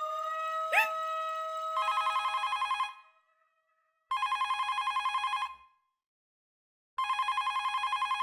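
A telephone ringing: three trilling electronic rings, each a little over a second long, with pauses of about a second between them. Before the first ring, a held music note sounds, with a short swoop about a second in.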